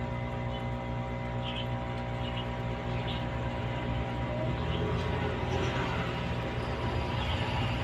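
A steady mechanical hum made of several steady tones over a low drone, with a few faint ticks.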